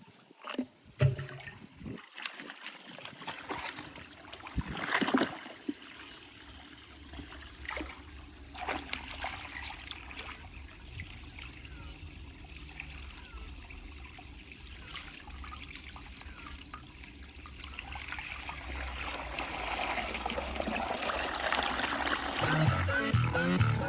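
Water trickling and splashing on a JBL Go 4 Bluetooth speaker, with a few knocks in the first seconds and a steady low bass hum from the speaker. The water sound grows louder over the last several seconds, and pulsing bass-heavy music starts near the end.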